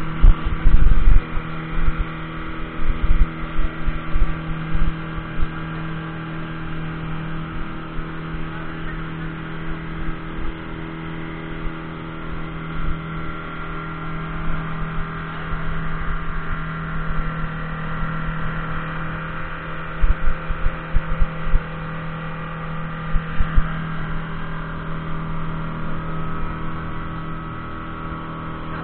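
Outboard motor of about 150 hp running steadily at speed, driving a small open boat across the sea: an even engine drone with a constant hum. Irregular low thumps come near the start and again about twenty seconds in.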